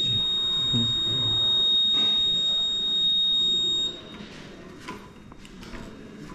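Blood collection monitor's alarm: a continuous high-pitched electronic tone that signals the bag has reached its set volume. It cuts off suddenly about four seconds in, and a few faint clicks follow.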